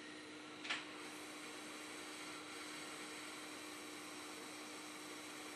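Steady electrical hum and hiss from bench equipment, with a single short click just under a second in.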